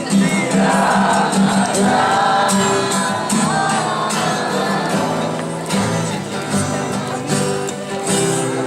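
A song sung with acoustic guitar accompaniment: a voice holds a wavering melody over steady strummed chords.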